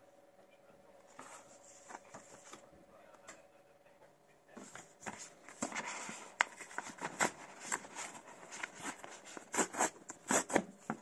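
Hands handling a sheet-mask pouch: the packaging crinkles and rustles softly at first, then becomes a dense run of sharp crackles about halfway through. The loudest crackles come near the end as the top of the pouch is torn open.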